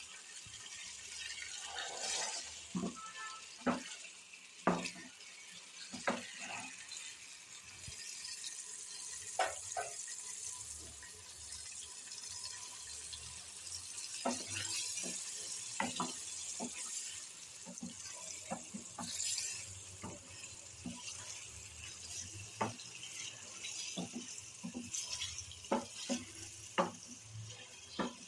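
Chopped tomatoes frying in oil in a stainless steel pan, sizzling steadily, while a wooden spatula stirs them and knocks and scrapes against the pan at irregular intervals.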